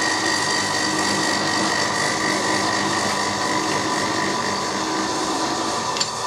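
Milling machine cutting gear teeth into a Tufnol fibre blank: the machine runs steadily with a constant high whine under the noise of the cutter chewing through the soft phenolic material.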